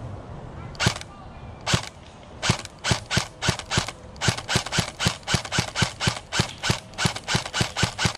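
Airsoft gun firing rapid single shots: two spaced shots, then a steady string of about five shots a second.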